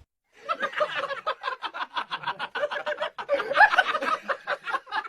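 Rapid, continuous laughter, a long run of quick snickering pulses with wavering pitch, starting about half a second in.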